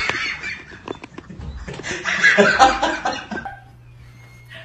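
Person laughing in two bouts, the second louder, stopping about three and a half seconds in; after that only a low steady hum remains.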